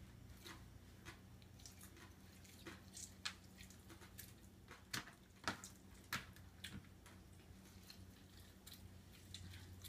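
Faint wet squishes and drips of lemon juice being squeezed over raw bonito fillets and rubbed in by hand on a plastic cutting board, with a few soft clicks, over a low steady hum.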